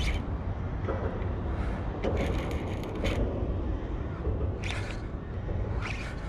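Baitcaster fishing reel being cranked in against a hooked barramundi, under a steady low rumble. Short rasping bursts sound now and then, most densely about two to three seconds in.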